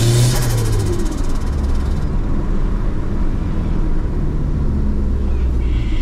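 Turbocharged Mitsubishi Mirage engine coming off throttle, its revs dropping while the turbo, running without a blow-off valve, makes a fluttering compressor-surge hiss (the "dose" noise) that dies away about two seconds in. It then runs on at low revs, with a slight pick-up near the end.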